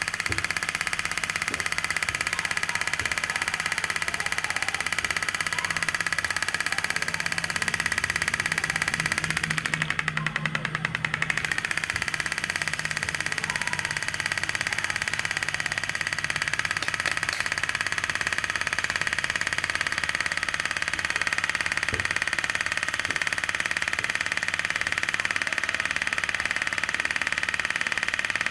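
Small homemade two-stroke engine, built from a refrigerator compressor, running steadily at high speed with a high buzzing note. About ten seconds in the revs dip for a second or two, then pick up again.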